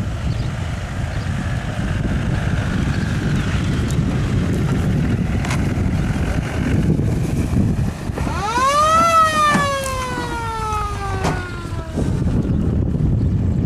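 Land Rover Defender engine running low as the truck crawls over rough grass, with a low rumble and wind on the microphone. About eight seconds in, a loud pitched tone rises quickly, slides slowly down in pitch for about four seconds, then cuts off suddenly.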